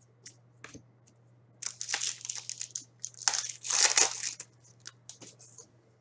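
Foil wrapper of a hockey card pack crinkling and tearing as the pack is opened, in two spells, the second louder, with light clicks of cards being handled.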